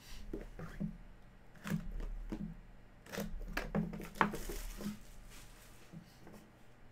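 Hands opening a small white cardboard trading-card box and handling what is inside: scattered taps, scrapes and clicks, with a brief rustle about four and a half seconds in.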